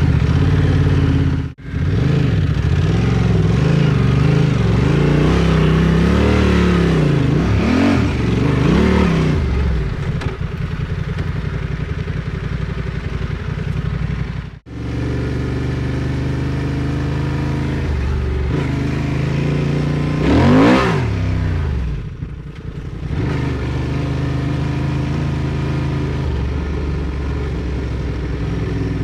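Motorcycle engine running on a dirt trail under changing throttle, its revs rising and falling repeatedly, with two brief cut-outs and a quick rev up and back down about twenty seconds in.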